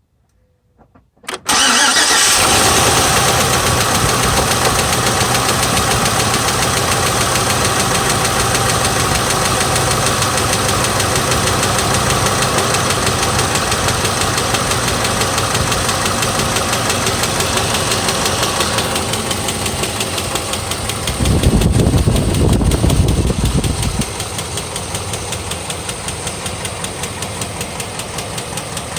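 A 5.3-litre Vortec V8 (LH6) in a 2006 GMC Envoy XL Denali starts about a second in and runs at idle with a rhythmic knocking and ticking: a rod knock from repeated loss of oil pressure, along with lifter tick. The engine gets quieter after about twenty seconds, and a louder low rumble lasts about three seconds near the end.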